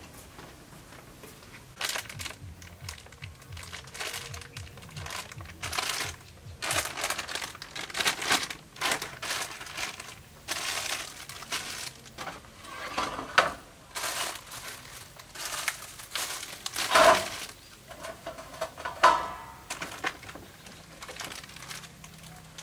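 Plastic bags crinkling and rustling in irregular bursts as packaged ingredients are handled and taken out of a woven basket.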